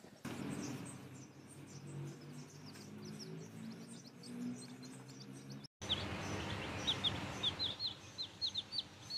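Baby chicks peeping. Faint high chirps sound over a low steady hum at first. After about six seconds, loud, rapid peeps come from a chick close by, several a second.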